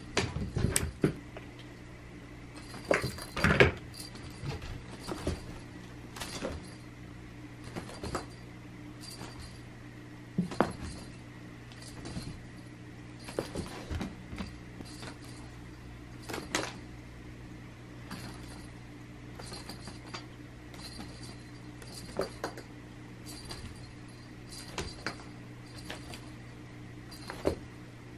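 Scattered metallic jingling and light clicks from a cat wand toy being flicked about while a cat pounces on it, loudest about three to four seconds in. A steady low hum runs underneath.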